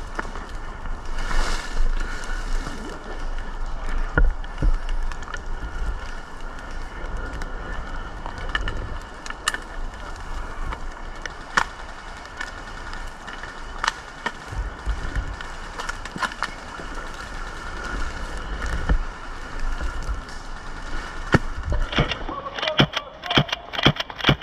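Airsoft guns firing: scattered single sharp cracks every few seconds over a steady low rumble, then near the end a rapid string of shots at several a second.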